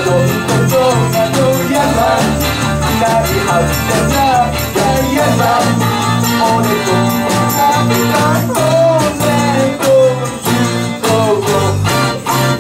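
Live band playing an upbeat pop song with a steady bass line and regular drum beat. Electric guitar, bass guitar, drums and keyboard play under male and female voices singing in Japanese.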